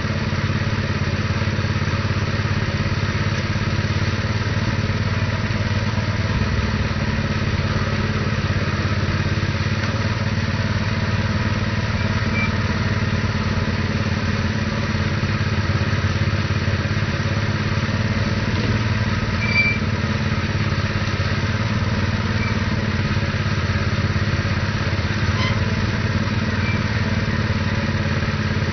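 Predator 212cc single-cylinder four-stroke engine powering a cable tool drill rig, running steadily while the rig hoists a casing section. A few faint clicks now and then.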